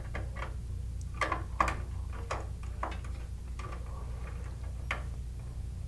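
Small screwdriver ticking and scraping on the screw terminal strip of a Honeywell VISTA-21iP alarm panel as a resistor lead and zone wire are seated and the terminal screw is tightened. There are about a dozen light, irregular clicks over a steady low hum.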